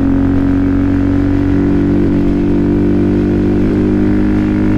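Benelli TNT125's single-cylinder 125 cc engine and exhaust running at a steady cruising speed, pitch holding even apart from two brief wavers, with wind rushing over the rider's microphone.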